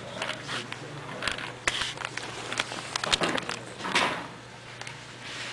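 Parallax SumoBot robots in a match on the sumo ring: irregular clicks, knocks and scuffs as the small wheeled robots bump and shove each other.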